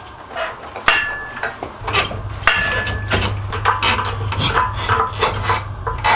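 Workshop hydraulic engine crane being pumped by hand to lift an engine hung on chains: a quick run of metallic clicks, clanks and short squeaks, about three a second, with a low hum coming in about two seconds in.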